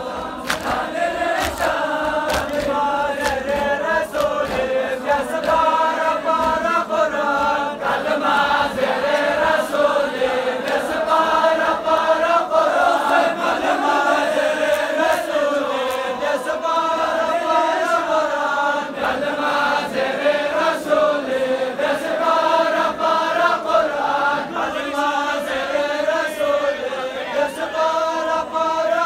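A large crowd of men chanting a Muharram mourning lament (noha) in unison, the melody rising and falling in long phrases. Sharp, irregular slaps cut through the chant, typical of hands beating chests (matam).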